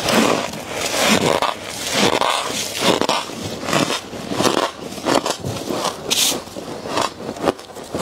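Freezer frost crunching as it is bitten and chewed, mixed with gloved hands scraping frost off the inside of a chest freezer. It comes as a run of irregular crunches and scrapes.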